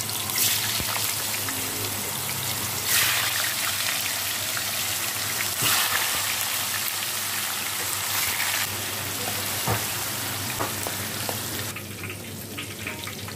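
Tofu cubes deep-frying in hot oil in a wok: a dense, steady sizzle with small pops, swelling louder several times as more pieces are dropped in, and easing off near the end.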